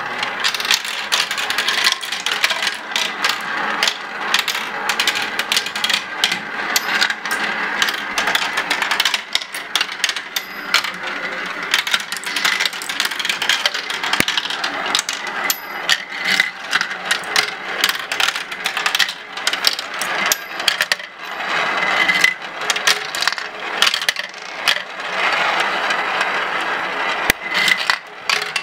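Glass marbles rolling and clattering through a plastic marble run, swirling around plastic funnel bowls. A steady rolling rattle with frequent sharp clicks as the marbles strike the track pieces and each other.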